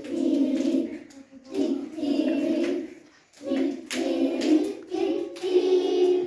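A group of young children singing a song in unison, in short phrases with brief breaks between the lines.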